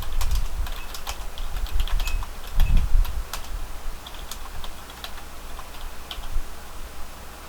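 Typing on a computer keyboard: irregular keystrokes, with a low thud about two and a half seconds in.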